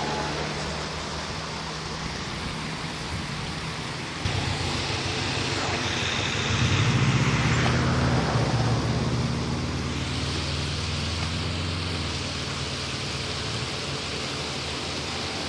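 Twin-engine propeller aircraft running, a steady engine drone with several low tones and propeller noise that swells to its loudest about halfway through and then eases off.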